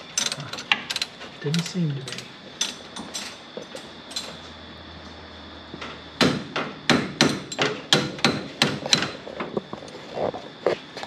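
Sharp, irregular metallic knocks and clicks of hand tools working on the steering rack mounting bolts: a cluster of knocks at the start, a short lull, then a quick run of knocks after the middle and a few more near the end.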